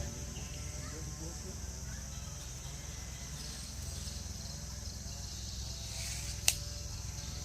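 Steady high insect chorus over a low hum, with faint voices, and a single sharp knock about six and a half seconds in.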